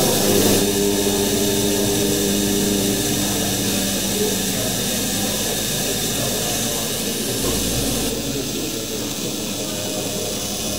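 A man chanting one long, steady-pitched Om for about two and a half seconds near the start, over the steady hiss of the running Tesla-coil gas-tube lights.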